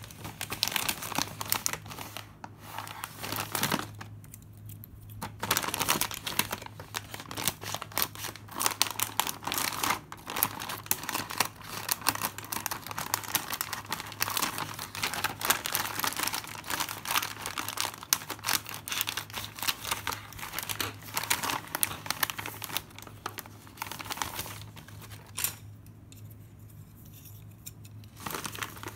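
Plastic potato-chip bag crinkling and rustling as it is handled and torn open, with two short pauses.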